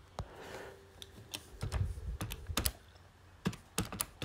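Calculator keys being pressed to work out a sum: a run of short clicking taps in two quick bunches, the second near the end.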